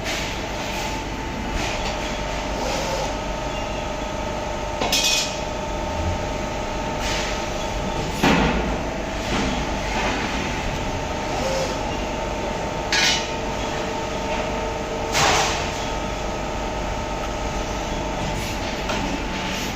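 CNC press brake running: a steady hydraulic hum with a few held tones, broken about four times by sharp metallic clanks.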